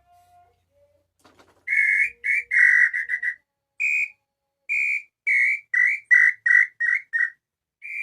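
Tinamou call whistle (pio) blown in a series of short whistled notes imitating a lambu, the notes coming faster and shorter toward the end. A few faint clicks come just before the calling starts.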